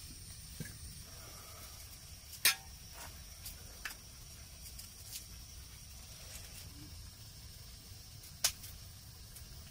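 Small knife peeling raw potatoes by hand: quiet scraping with a few sharp clicks, the loudest about two and a half seconds in and another near the end.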